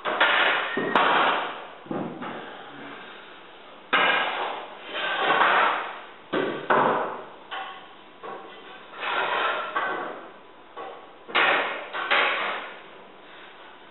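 Hardwood floorboards being laid and knocked into place: a dozen or so sudden, loud knocks and clatters at irregular intervals, each trailed by a moment of wood rattling or scraping.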